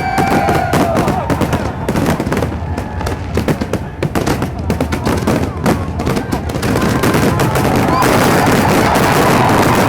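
Aerial fireworks bursting in rapid, irregular bangs and crackles. About eight seconds in they merge into a dense, continuous crackle that grows louder.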